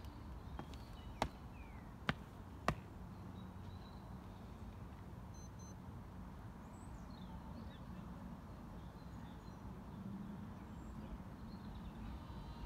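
Three sharp knocks in quick succession, the second and third about half a second apart, from a drill party moving on tarmac, over steady outdoor background noise. Faint bird chirps follow.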